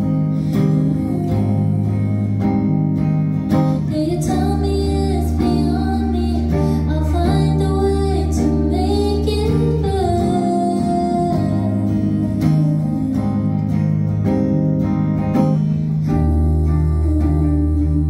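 A live song: a woman singing over her own electric guitar chords, with steady deep bass notes underneath. Her voice comes in about four seconds in and drops out around ten seconds, leaving the guitar and bass playing on.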